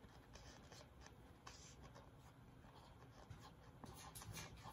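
Faint scratching of a felt-tip marker drawn across a paper plate in short, repeated strokes.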